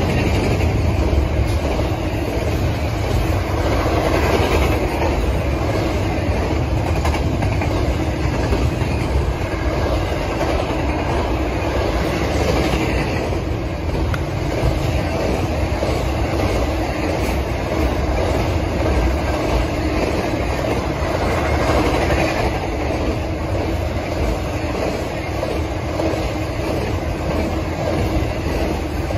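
Double-stack intermodal freight cars passing at speed: a steady, loud noise of steel wheels running on the rails.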